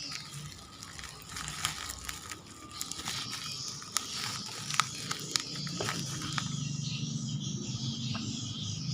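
Packaging being handled and opened: scattered clicks and rustling of plastic and paper. A low steady hum comes in about six seconds in.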